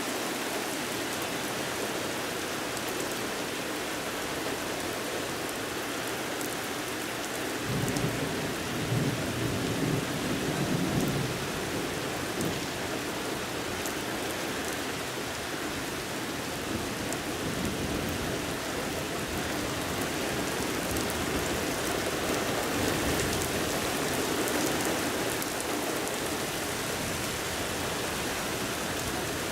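Steady rain falling, with a roll of thunder that starts about eight seconds in, is loudest for a few seconds, then rumbles on more softly for a while.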